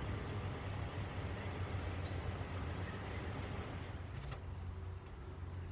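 Toyota Tacoma's engine idling steadily after a remote start, with a short click about four seconds in.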